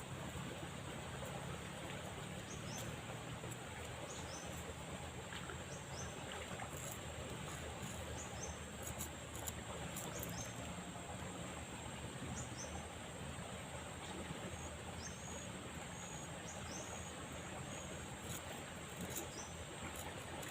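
Steady rushing of a fast-flowing river, with short high bird chirps repeating irregularly over it and a steady high insect drone.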